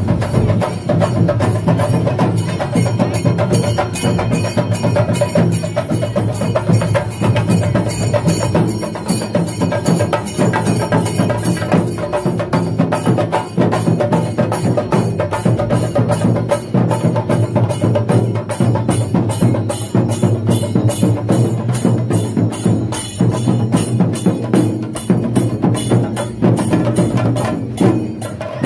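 Loud percussion music with a fast, dense, unbroken beat of drum strokes over ringing metallic tones.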